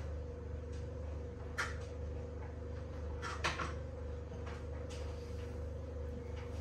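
A few light knocks and clatter of food being prepared at a kitchen worktop, the loudest about three and a half seconds in, over a steady low hum.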